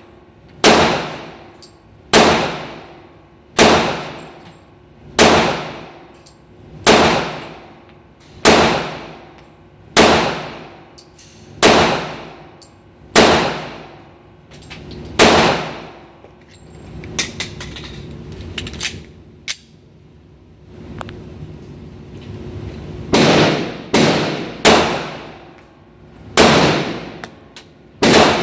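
Pistol shots fired at a slow, steady pace, about one every second and a half, each report followed by a long echoing tail. About halfway through there is a lull with a few fainter, shorter reports before the steady shots resume.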